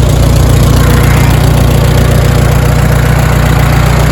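Allis-Chalmers D17 tractor's four-cylinder engine running steadily with a loud, even low drone.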